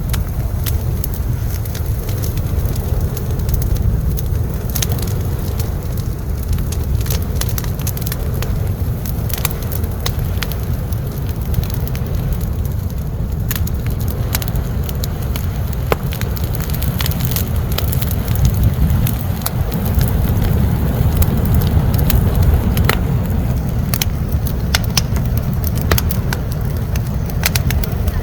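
Large wood bonfire burning at full blaze: a steady low rumble with frequent sharp crackles and pops of burning wood.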